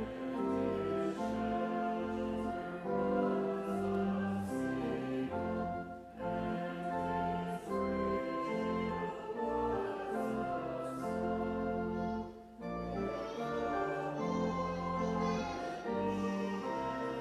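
Congregation singing a hymn with organ accompaniment, in phrases of held notes with short breaths about six and twelve and a half seconds in.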